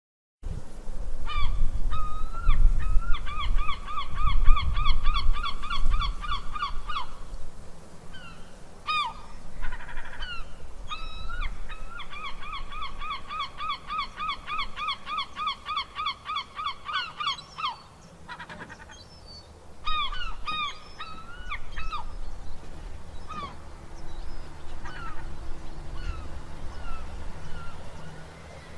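Seagulls calling: two long, rapid series of repeated yelping calls, about five a second, with scattered single cries between them. A low rumble sits under the calls, strongest in the first few seconds.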